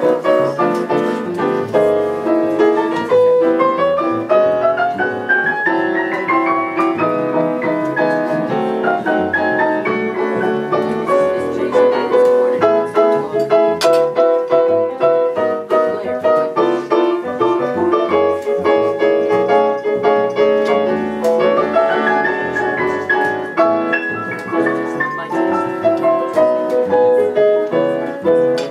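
Jazz piano solo on a grand piano, with upright bass accompaniment underneath. The right hand plays several quick rising runs, the longest in the first few seconds.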